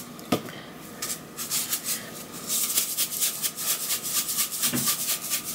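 Plastic seasoning shaker shaken over a raw beef roast, the dry seasoning rattling in quick rhythmic shakes, several a second, that start about a second in and grow stronger. A soft knock comes near the start and another near the end.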